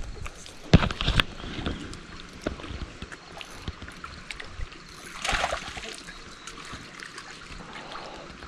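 Faint water lapping at the rocks, with a sharp knock about a second in and a short noisy rustle a little past the middle.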